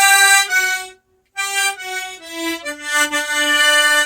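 G-key harmonica playing a melody phrase in octaves, two reeds an octave apart sounding together: a held note, a short break about a second in, then notes stepping down.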